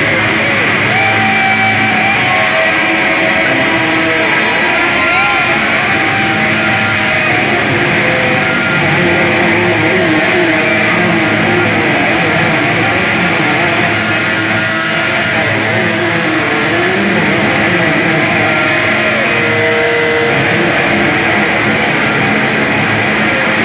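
Noise music: a loud, continuous wall of distorted electric guitar and electronic drone, with wavering pitched tones sliding up and down through it.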